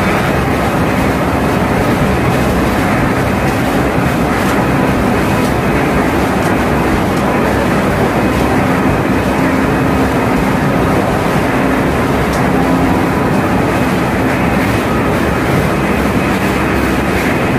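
Running machinery in a tanker's engine room, with the large main diesel engine close by: a loud, unbroken mechanical din. A faint steady hum comes up in the middle.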